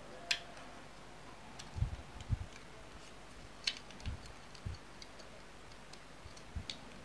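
Small plastic antenna parts handled and fitted together by hand: scattered sharp clicks and a few soft low thuds.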